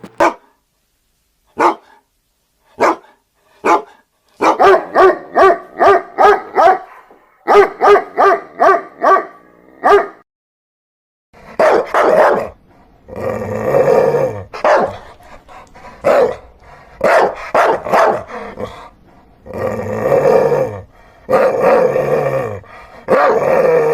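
Dogs barking: a few single barks spaced about a second apart, then two quick runs of barks at about three a second, then from about halfway on longer, harsher barks with a growl in them.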